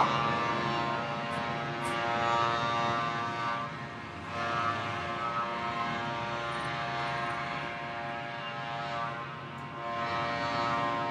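Big ship's horn holding a long, steady, many-toned blast at a lower level, swelling slightly a few times.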